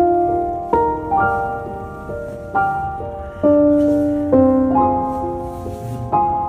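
Slow, gentle solo piano music: single notes and chords struck about once a second, each left to ring and fade.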